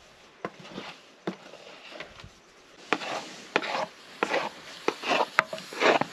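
Wooden stirring stick knocking and scraping against an aluminium pot as stiff porridge is worked and scooped out: a few sharp knocks at first, then quicker, louder knocks and short scrapes from about three seconds in.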